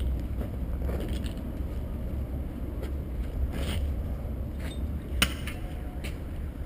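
Steady low rumble with scattered small clicks and scrapes, and one sharp click about five seconds in.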